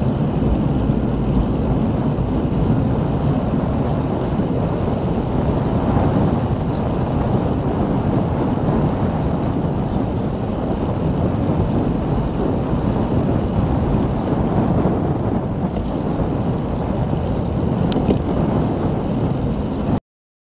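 Steady wind rush and buffeting on the microphone of a camera riding on a moving bicycle, a continuous low rumble; it cuts off suddenly near the end.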